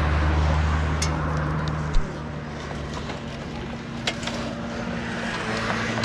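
A motor running steadily with a low hum, with a few sharp clicks and knocks and one low thump about two seconds in.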